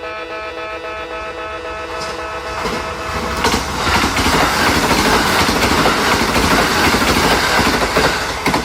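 Electronic level-crossing bells ringing steadily at a Kintetsu station-yard crossing. About three seconds in, a train runs past close by, and the clatter of its wheels on the rails swamps the bells. Near the end the train noise drops away and the bells stand out again.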